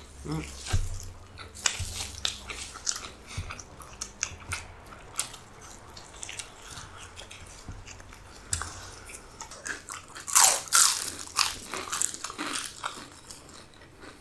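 Eating sounds: repeated bites and chewing with crunches and wet mouth clicks, the loudest burst of crunching about ten seconds in.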